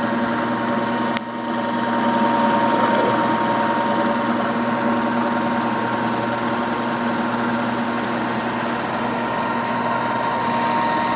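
Acer Ultima 3VKH variable-speed milling machine running steadily, its 3 HP spindle drive giving a constant whine, with a brief dip in level about a second in.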